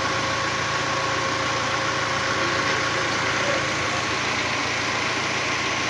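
Vehicle engine running steadily at an even level, with a faint steady whine over it.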